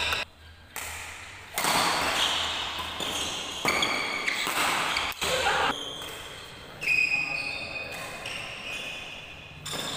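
A badminton doubles rally in a reverberant hall: sharp racket strikes on the shuttlecock coming suddenly about four or five times, with players' shoes on the court and voices between the shots.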